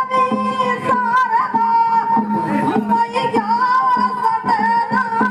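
Indian folk devotional music: a held, wavering melody line over repeated drum strokes.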